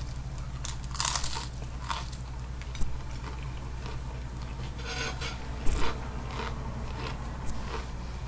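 Crunching and chewing of a fried crab rangoon's crisp wonton wrapper: a bite, then several sharp crunches spread through the chewing.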